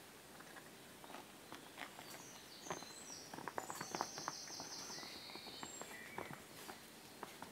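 Deerhound-lurcher puppies playing: paws scrabbling and pattering on a mat, with light taps and clicks, busiest from about two to five seconds in.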